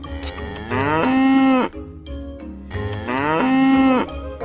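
A cow mooing twice, each moo about a second long, rising in pitch and then holding steady.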